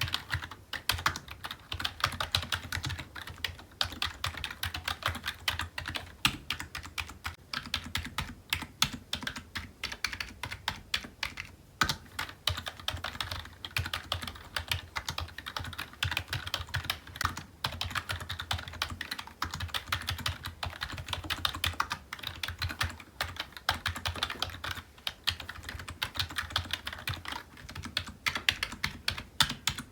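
Computer keyboard being typed on steadily, a fast, continuous run of key clicks with a low thud under each stroke.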